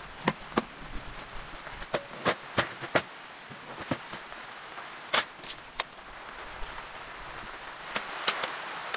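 Sharp clicks and clacks of folding metal camp chairs and a folding table being snapped open and set down, a dozen or so knocks with the loudest about halfway through, over a steady hiss of rain.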